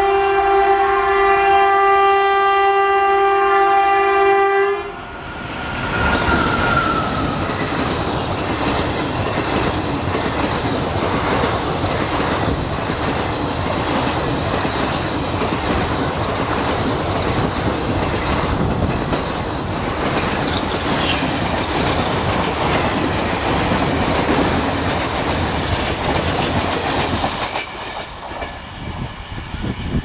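WAP-4 electric locomotive's horn sounding one long blast that cuts off about five seconds in. The express train's coaches then rush past non-stop with a rapid clickety-clack of wheels over the rail joints, growing quieter near the end as the last coach passes.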